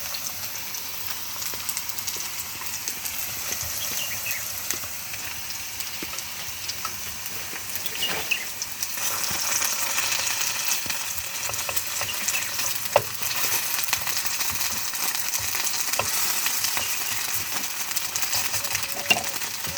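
A steady, sizzling hiss with scattered small crackles and ticks, growing louder about halfway through.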